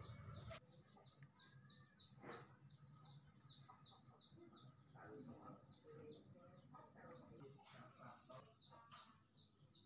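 Faint background birdsong: a small bird chirping steadily in a series of short, high, falling notes, about three a second, with a few lower bird calls now and then.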